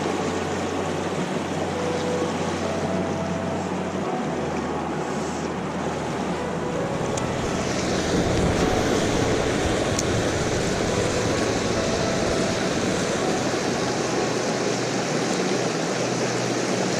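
Steady rush of water from a discharge outflow, a little louder from about halfway through.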